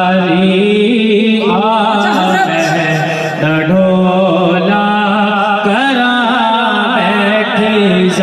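Male reciter singing a Punjabi Sufi kalam into a microphone, holding long wavering wordless melismas that glide up and down, over a steady low drone.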